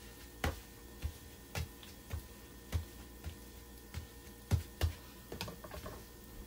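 Plastic spatula clicking and tapping against an electric griddle as pancakes are flipped: about ten sharp taps at uneven intervals.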